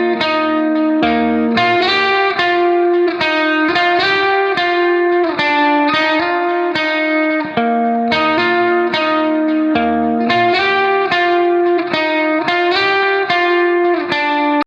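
Background music: a plucked guitar melody of quick, evenly spaced notes over a low bass line, with a phrase that repeats about halfway through.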